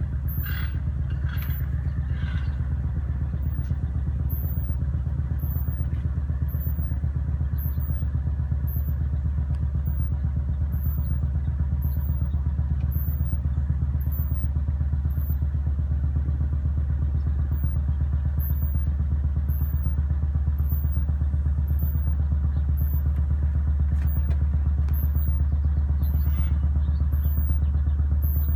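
Construction machinery running steadily with a deep, heavy, fast-pulsing low rumble: bass and vibration carried into a house.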